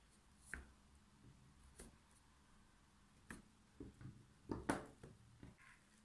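Raw potato slices being laid by hand onto sliced onions in a round metal tray: about nine faint, unevenly spaced taps and soft knocks, the loudest a pair about four and a half seconds in.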